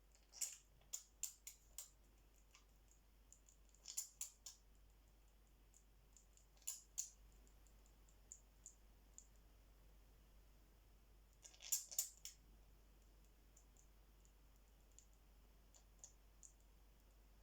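A pet parrot sneezing and shaking its head: short, sharp, high clicks in several quick bouts, the loudest cluster about twelve seconds in, with a few faint single ticks between.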